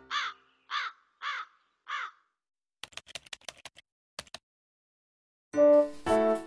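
A crow cawing four times in quick succession, followed by a short run of rapid typing-like clicks. Music comes in near the end.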